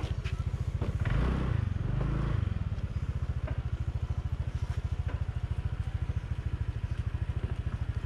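An engine running with a fast, steady low throb, briefly louder for about a second and a half starting about a second in.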